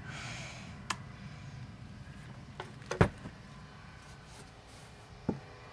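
Tool handling on a wooden cabinet door: a short scrape at the start, then a few sharp clicks and knocks, the loudest about three seconds in, as a plastic drilling jig and a cordless drill are lifted and set down.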